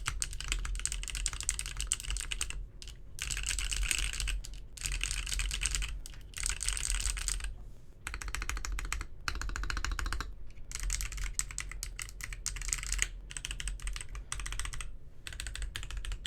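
Typing on a D45 45% mechanical keyboard with SP Star Magical Girl tactile switches on a brass plate, DSA PBT keycaps, foam-dampened case: quick runs of key clicks broken by short pauses.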